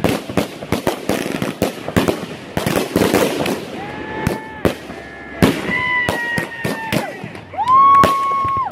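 Fireworks display: a rapid run of bangs and crackling pops, then several steady whistling tones from about four seconds in, the loudest one near the end, with more pops in between.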